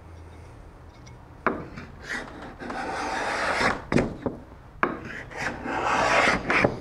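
Veritas cabinet scraper pushed along a wooden board, its blade scraping off thin shavings. Two long rasping strokes, the first about a second and a half in, each starting with a sharp knock.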